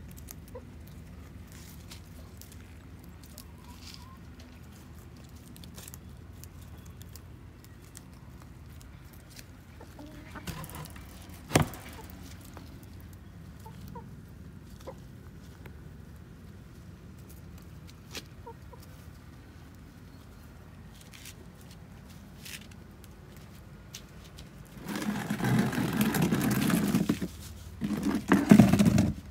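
Domestic hens clucking and pecking at scraps on the ground. There is a single sharp knock around the middle, and a much louder, noisy stretch of about four seconds near the end.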